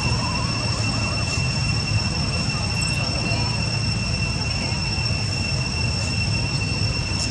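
Steady outdoor background noise: a constant low rumble with a steady high-pitched whine over it, unchanging throughout.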